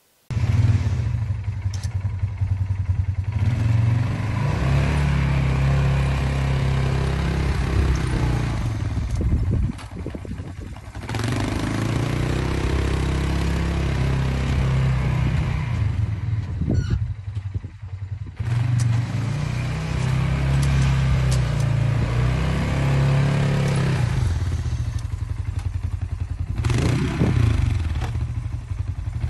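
2020 Polaris Sportsman 570 ATV's single-cylinder engine running hard and revving as the quad pushes snow with its front plow blade. The engine note rises and falls, dropping back briefly three times.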